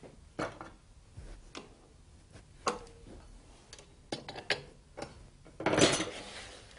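Metal hold-down springs being fitted and clamped to a spindle moulder's fence: scattered metallic clicks and knocks. Near the end, a louder brief scrape as the wooden workpiece is slid across the machine table.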